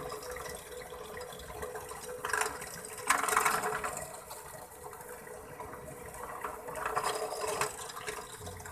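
Bench drill press running with a steady hum as its 4.4 mm bit drills into the aluminium main frame of an overhead fishing reel, with harsher, louder cutting about two seconds in, from about three to four seconds in, and again around seven seconds in. The bit is enlarging a stripped, corroded M4 screw hole so it can be re-tapped to M5.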